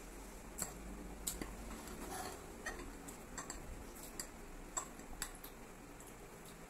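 Metal forks clicking and scraping against a plate as noodles are twirled and lifted: faint, irregular light clicks, roughly one or two a second.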